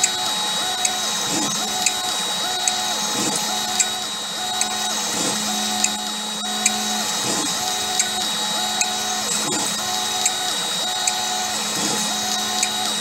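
CNC mill peck-drilling small holes in aluminium with a 2.5 mm bit. The spindle runs fast with a steady high whine, while the axis motors drive the bit in and out in a regular cycle of about one peck a second, each marked by a tick.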